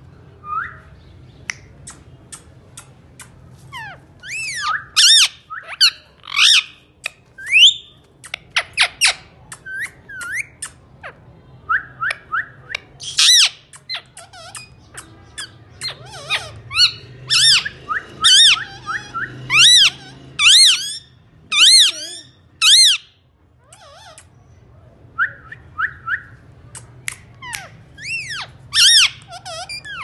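Indian ringneck (rose-ringed) parakeets calling: runs of sharp, high-pitched calls and whistles, with a stretch of loud calls coming about one a second in the middle and short pauses between runs.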